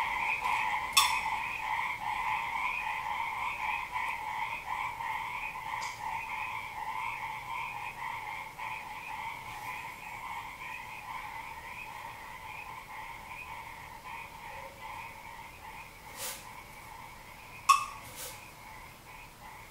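A percussion instrument worked with a thin stick gives a steady two-pitched ringing that wavers in quick pulses and slowly fades. A sharp tap comes about a second in, and a few more near the end.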